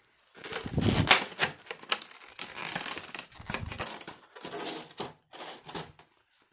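Funko Pop box and its plastic packaging being handled: irregular taps, clicks and rustling.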